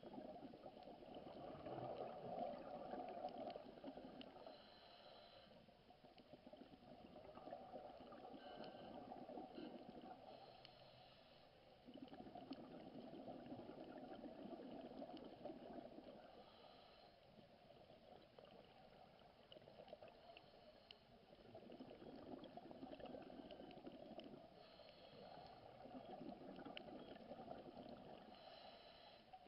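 Faint underwater sound of a scuba diver breathing through a regulator: exhaled bubbles gurgle in swells that rise and fall about every five seconds.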